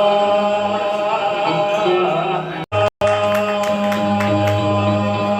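Live music with voices singing in a long, held chant over a steady low drone. The sound cuts out completely for a fraction of a second near the middle, then resumes.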